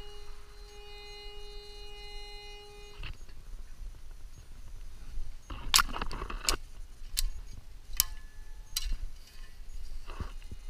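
TM-808 two-box metal detector sounding a steady tone that cuts off suddenly about three seconds in. Then twigs and brush crackle and snap underfoot, with several sharp snaps between about five and nine seconds, the loudest near the middle.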